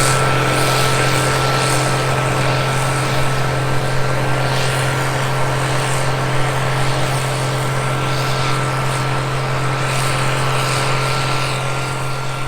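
Combine harvester running steadily while harvesting wheat: a constant engine drone with a thin, steady whine above it.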